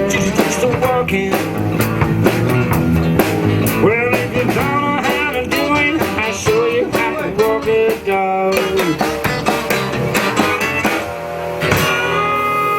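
Blues band playing an instrumental break, with a guitar leading over the band and bending notes.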